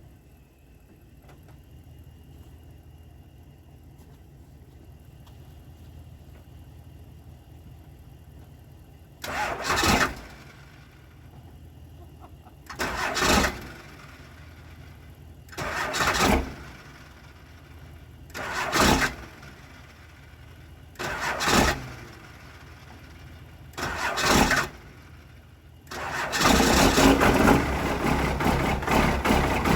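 Cold vehicle engine being boost-started: the starter cranks in six short tries of about a second each, a few seconds apart, then the engine catches and keeps running near the end. Getting a good battery connection is what lets it fire, and the battery terminal is the weak spot.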